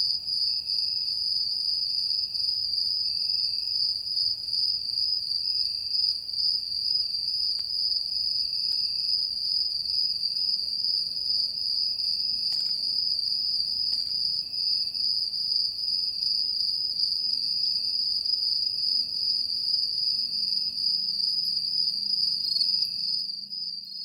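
Crickets chirping in a continuous high-pitched trill, with a fainter pulsing call repeating about once a second beneath it. The sound cuts off near the end.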